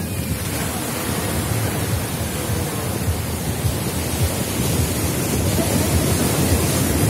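Sea surf breaking and washing up the sand in a steady rush, with wind rumbling on the microphone; it grows a little louder near the end.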